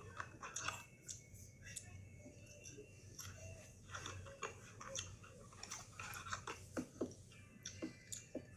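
A person chewing a mouthful of burger and fried pickles close to the microphone, with irregular crisp crunches and wet mouth clicks.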